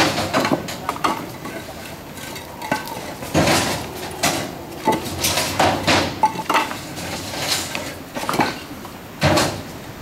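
Hollow concrete blocks clacking and knocking against each other as they are set down and stacked by hand, in irregular knocks, a few with a short ring.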